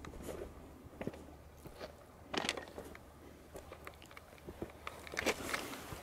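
Footsteps crunching on railroad track ballast, irregular gravel crunches and clicks with two heavier steps, about two and a half seconds in and near the end.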